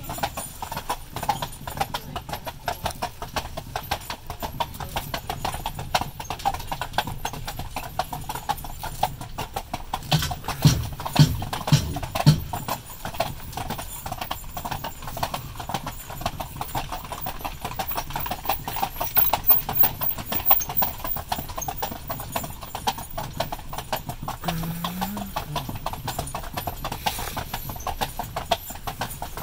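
Hooves of a pair of harnessed carriage horses clip-clopping on an asphalt road as they pull a carriage uphill, in a steady, even rhythm. A few heavier low thumps come about a third of the way in.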